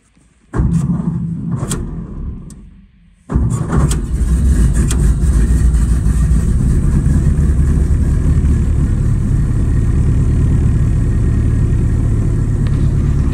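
1930 Ford Model A's four-cylinder engine cold-starting in below-zero cold: a first attempt about half a second in fades away, then about three seconds in the engine catches and settles into steady running.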